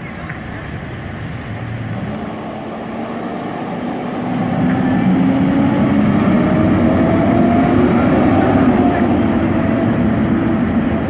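Fire truck's diesel engine running as the pumper pulls through an intersection, its note rising slowly and louder about four seconds in as it accelerates. No siren.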